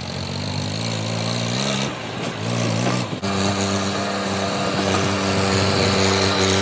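Massey Ferguson tractor's diesel engine running steadily under load as it hauls a trolley heavily loaded with sugarcane. The engine note shifts abruptly about three seconds in.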